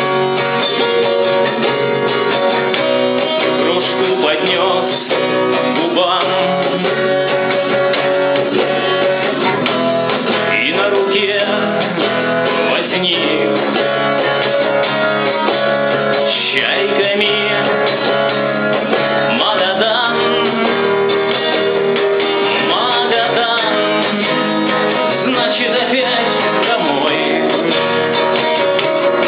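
Music with guitar, steady throughout.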